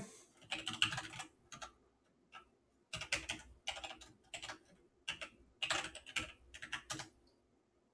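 Typing on a computer keyboard: runs of quick keystrokes broken by short pauses, entering a username and then a password, stopping near the end.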